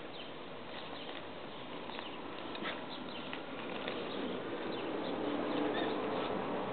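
Crinkling and crackling of a heap of paper strips as several Malinois puppies tug and chew at it, with many small irregular rustles. A low rushing sound swells in the second half.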